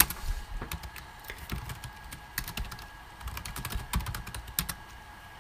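Typing on a computer keyboard: quick, irregular key clicks that stop just before the end.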